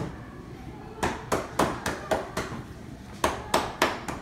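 Hands striking the client's body in quick percussive massage strokes, sharp slaps about three a second, with a short pause about halfway through.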